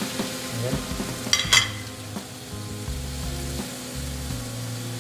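Ribeye steak frying in butter in a cast-iron grill pan, a steady sizzle. About a second and a half in, two sharp metallic clicks from the steel tongs knocking against the pan.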